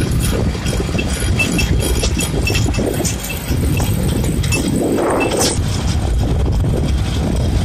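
Steyr 8073 tractor's diesel engine running steadily as it drives along a road, with frequent short rattles and clicks throughout.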